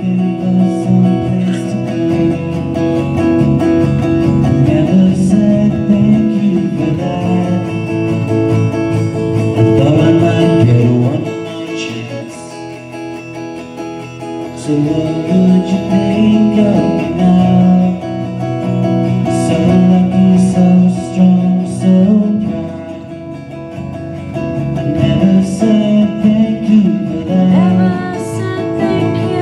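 Live acoustic guitar music: an acoustic guitar played with a second guitar alongside, an instrumental break in a song.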